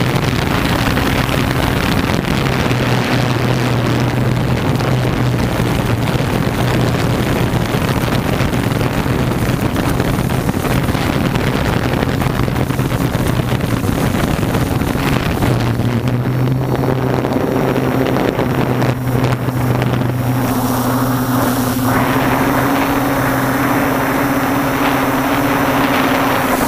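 Multirotor camera drone's propellers and motors humming steadily, with wind rushing over the microphone; the hum shifts slightly about two-thirds of the way through.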